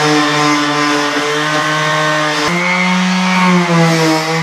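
Electric sander running steadily, sanding dried body filler, its motor hum stepping up in pitch about two and a half seconds in.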